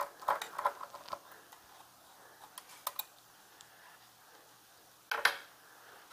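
Small, light clicks and ticks of a small screwdriver working the tiny backplate screws of a graphics card, in a cluster at the start and a few more around three seconds in, with one louder brief clack about five seconds in.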